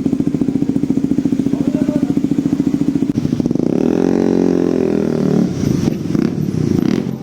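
Motorcycle engine through an aftermarket Akrapovic exhaust, idling with a fast even beat, then revved up about three and a half seconds in and let fall back, with a shorter blip of the throttle later.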